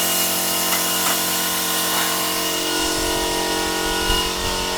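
CNC plasma cutter running on steel: a steady hiss with several steady whining tones over it, and a low rumble coming in about three seconds in.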